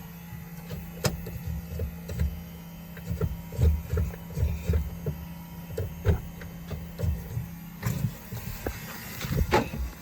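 Honda CRX's electric fuel pump running with a steady hum, switched on as a check before cranking the freshly swapped engine; it cuts off about eight seconds in. Scattered knocks and clicks sound over it.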